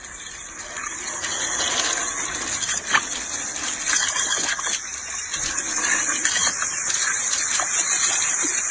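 Jet of water from a hose spraying against a jet ski's hull, a steady hiss with a brief sharp click about three seconds in.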